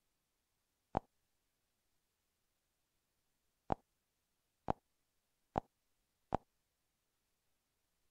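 Five sharp computer mouse clicks over near silence: one about a second in, then four in quicker succession a few seconds later.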